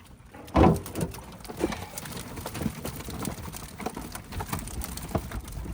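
Freshly caught channel catfish flopping in the boat as the net is hauled in: one loud thump about half a second in, then irregular knocks and slaps.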